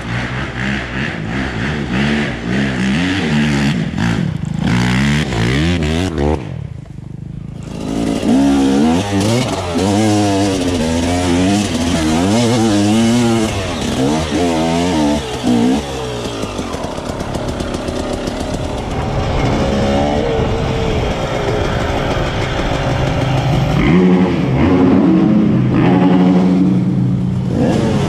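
Dirt bike engine revving up and down over and over with the throttle while riding, over a steady rush of noise. The sound drops out briefly about seven seconds in.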